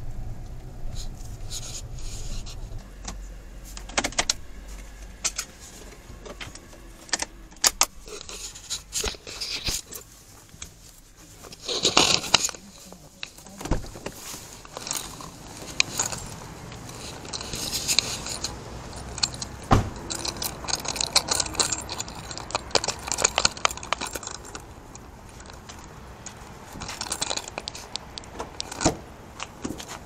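Small metal tools and fittings clinking, jangling and scraping in irregular clusters of sharp clicks during hand work on a diesel heater install.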